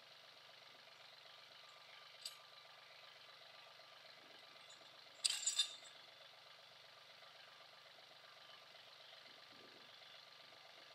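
An engine idling faintly and steadily, with a short sharp knock about two seconds in and a quick run of three louder sharp clanks about five seconds in as a log is worked on a portable sawmill's bed.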